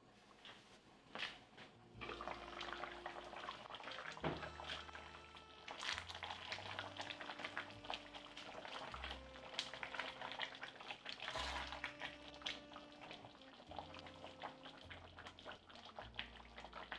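Beef stew bubbling at a simmer in the pot: a dense crackle of small pops starting about two seconds in, with soft background music of low sustained notes.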